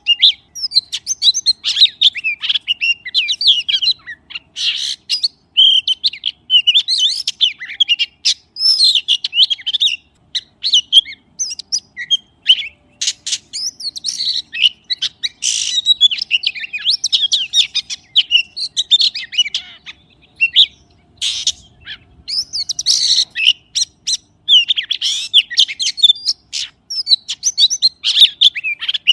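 A magpie singing a varied song of quick whistled phrases and sharp chips, in bouts separated by brief pauses.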